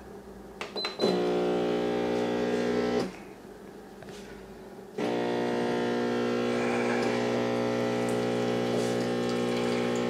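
Casabrews 4700Gense espresso machine's vibratory pump brewing a double shot after a button click. The pump hums steadily for about two seconds, stops for about two seconds, then starts again and runs steadily.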